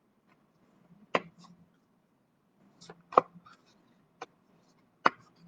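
Oracle cards being handled and pulled from the deck: a few separate sharp taps and clicks, the loudest about three seconds in.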